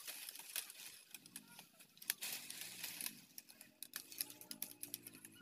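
Leafy bamboo stalks being pulled and handled: dry leaves rustling, with a quick irregular run of small crisp clicks and crackles.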